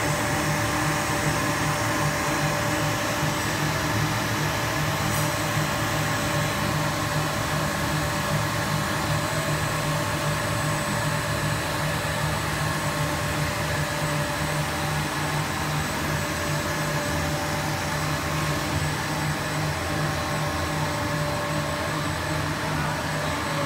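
Blown-film extrusion machine running: the steady air rush of its air-ring blower and motor hum, with several steady whining tones.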